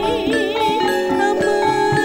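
Campursari music: a Javanese ensemble of gamelan-style mallet percussion and modern instruments playing steadily, with a wavering, ornamented melody line over sustained notes.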